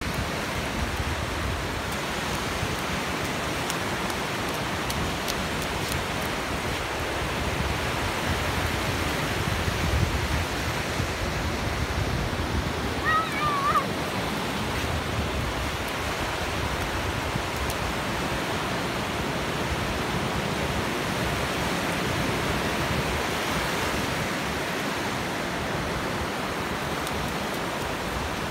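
Ocean surf breaking and washing up a sandy beach: a steady rush of waves and foam. A brief high call cuts through about halfway through.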